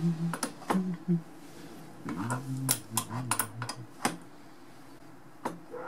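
Steel spanners clicking and clinking on a brass compression nut as it is tightened onto copper pipe, making the olive bite. The clicks are scattered and irregular. A low, wavering hum comes and goes in between them.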